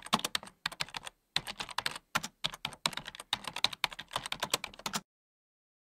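Typing on a computer keyboard: rapid key clicks in quick runs with short pauses between them, stopping about five seconds in.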